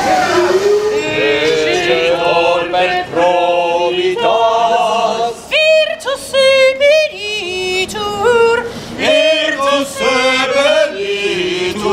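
A small group of voices singing together a cappella, holding notes that waver and slide in pitch, with short breaks between phrases.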